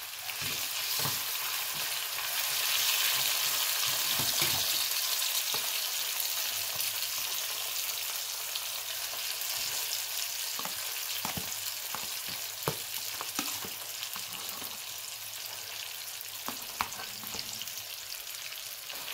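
Ground meat sizzling in a hot frying pan of onions as it is scraped in from a plastic tub; the sizzle swells a couple of seconds in, then settles to a steady hiss. Scattered sharp clicks of the spoon and spatula knocking against the pan and tub.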